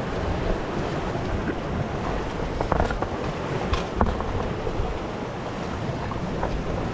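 Sea waves surging against rocky shore, with wind noise on the microphone and a few light clicks near the middle.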